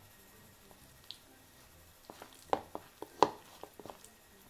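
A utensil stirring shredded crab sticks and mayonnaise in a bowl: a run of short wet squishes and clicks in the second half, the loudest a little past three seconds in.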